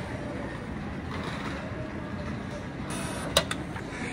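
Steady low background rumble, with a short rustle and a single sharp click about three and a half seconds in.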